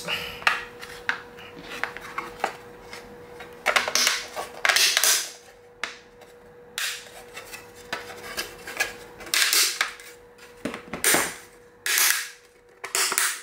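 Hard 3D-printed PLA plastic parts clacking, clicking and scraping together as turntable ring segments are handled and pressed into their dovetail joints. The sounds come as irregular knocks with several louder rattling bursts, over a faint steady hum.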